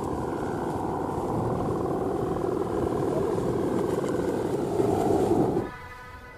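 Bow hummer (guangan) on a Balinese bebean plastic kite, droning steadily in strong wind, with wind rumble on the microphone; the drone stops shortly before the end.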